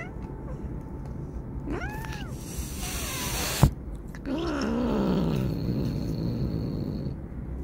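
A stray cat's short meow that rises and falls, then a hiss ending in a sharp knock, followed by a low growling yowl that slides down in pitch: a cat warning off another cat that has come too close.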